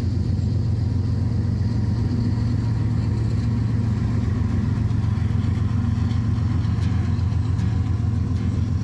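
A steady low engine hum, like a vehicle idling.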